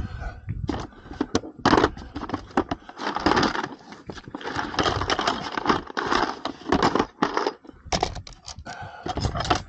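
Tools being rummaged and handled in a tool bucket: irregular metal clinks and knocks with scraping and rustling.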